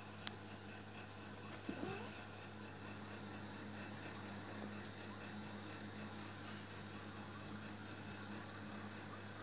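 Aquarium air stone and filter running: steady bubbling, trickling water over a steady low hum. A sharp click comes about a third of a second in, and a brief wavering squeak just under two seconds in.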